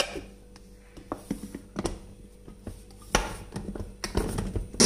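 Scattered plastic clicks and knocks as the lid of a food chopper is fitted and handled, with a louder clatter about three seconds in. Right at the very end the chopper starts up loudly.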